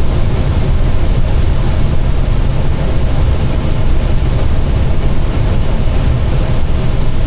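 Steady rumble of airflow and engines inside an Airbus airliner's flight deck on short final approach, with a faint steady hum above it.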